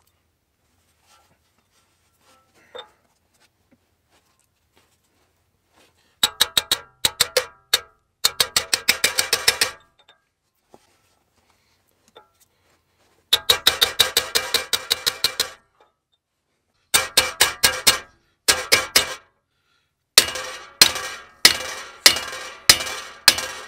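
A hammer striking the end of a splined clutch alignment tool in quick bursts of several blows with short pauses between, starting about six seconds in; each blow is a sharp metallic strike with a short ring. The blows drive the tool into moist bread packed in the crankshaft's pilot bore, forcing the worn pilot bushing out (the bread trick).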